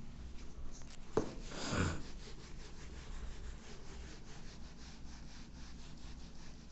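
A handheld whiteboard eraser rubbing back and forth across a whiteboard in many quick strokes, with a tap about a second in.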